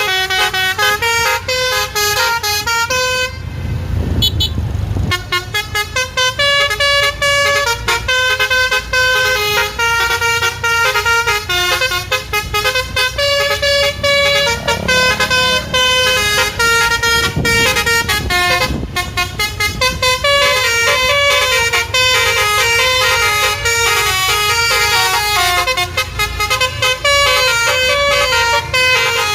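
Bus 'telolet' basuri musical horn playing a fast melody of many short pitched notes, with a pause of about two seconds a few seconds in where a low rumble takes over.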